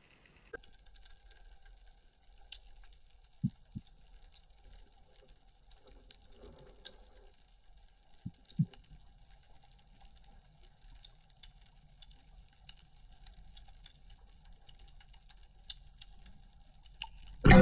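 Underwater ambience picked up through an action camera's waterproof housing. It is a faint, steady background with many small scattered clicks and crackles, and two pairs of short, low knocks, one about a fifth of the way in and one about halfway. A sudden loud burst comes at the very end.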